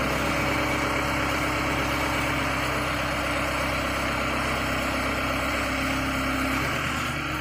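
Gradall telehandler's engine running steadily as it hoists a water tank off a truck frame.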